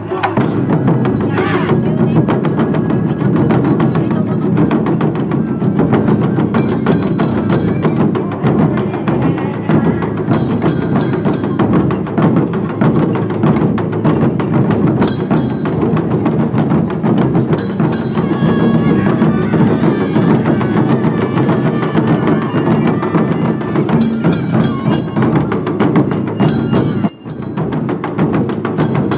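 Japanese festival drum music: steady taiko drumming with rapid, sharp wooden clicks over it. It breaks off briefly near the end.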